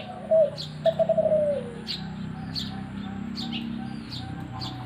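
Zebra dove (perkutut) cooing: a rippling run of notes in the first two seconds, the last one sliding down in pitch. Small birds chirp quickly and repeatedly alongside.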